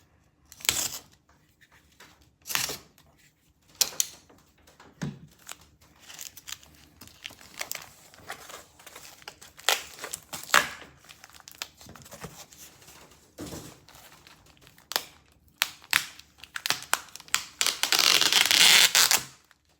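Packing tape being peeled off a shipping package and the package torn open and handled: scattered short rips and crinkles, with a longer, louder stretch of tearing and crinkling near the end.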